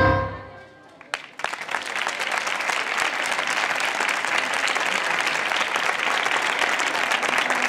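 The last note of the music dies away, then after a brief lull an audience starts clapping, a few claps first and then steady applause.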